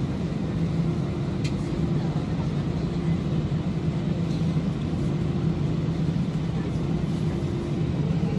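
Airbus A319 jet engines at takeoff thrust, with the wheels rumbling on the runway during the takeoff roll, heard inside the cabin. The sound is a steady low rumble with a constant low hum.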